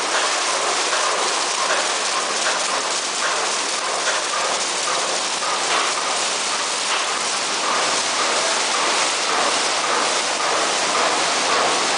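Automatic tunnel car wash at work: rotating brushes scrub the car's body under water spray, a steady splashing hiss.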